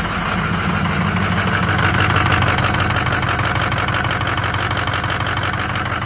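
Ford 6.0L Power Stroke V8 turbodiesel idling steadily and evenly. It is running smoothly, "like a beauty", with the rough-running misfire gone.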